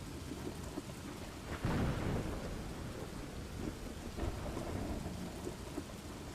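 Thunderstorm ambience: steady rain with a loud thunderclap about a second and a half in that fades over the next second or so, and a softer rumble of thunder a few seconds later.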